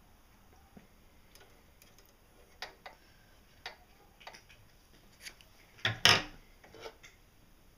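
Light, scattered clicks and scrapes of steel scissors and fingertips against a sewing machine's plastic bed and needle plate as the bobbin thread is drawn up, with a louder clatter about six seconds in.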